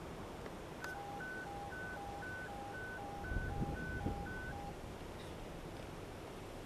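Electronic beeping in two alternating pitches, high and low, about four short beeps a second, starting about a second in and stopping after about four seconds, over steady background noise.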